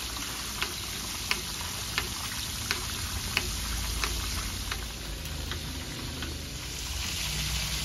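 Whole giant gourami (elephant ear fish) deep-frying in a pan of hot oil, its skin crisping. The oil sizzles steadily, with sharp pops about every two-thirds of a second.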